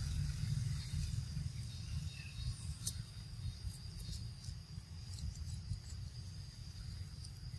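Steady high-pitched insect chirring, with a constant low rumble underneath and a few faint clicks.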